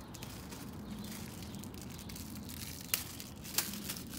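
Plastic packaging crinkling as a gloved hand rummages in a cardboard box, with two sharp clicks about three seconds in and half a second later, over a steady low hum.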